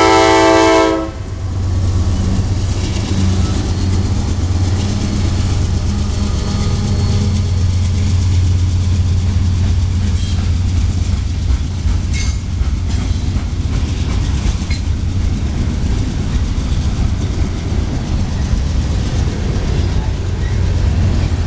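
A CSX diesel freight locomotive's horn ends its blast about a second in. Then comes the steady low rumble of the locomotives and coal hopper cars rolling past, with a few sharp metallic clanks between about twelve and fifteen seconds in.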